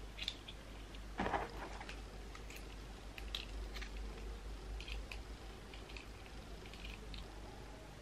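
Faint small clicks and scratches of a small plastic facial hair removal machine head being handled and picked at with a small metal tool, with one louder knock about a second in.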